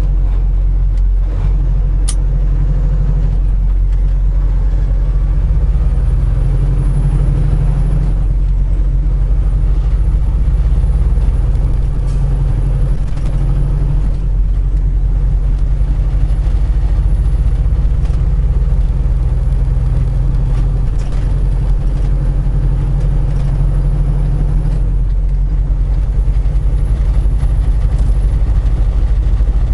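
Semi truck's diesel engine heard from inside the cab, running steadily under load as the truck pulls away and works up through the gears. A faint high whine rises and drops back about four times.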